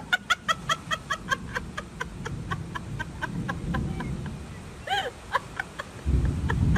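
High-pitched, breathless laughter: a squeal, then a fast run of short 'ha' sounds that slow and fade, starting up again with another squeal about five seconds in. A low rumble of wind or handling noise on the microphone comes in near the end.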